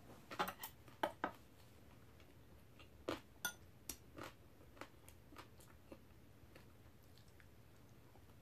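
Quiet eating sounds: metal chopsticks clicking against glass bowls and chewing. A few sharp clicks come in the first second and a half, then a run of clicks from about three seconds in that grows slower and fainter.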